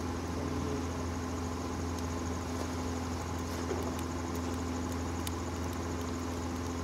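Steady low mechanical hum with a faint, fast high-pitched ticking over it and a few light clicks.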